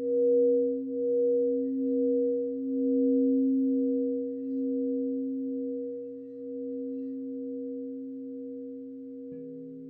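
Crystal singing bowls ringing with pure sustained tones, two pitches sounding together and slowly fading with a gentle wavering pulse; another bowl is struck near the end, adding a lower note.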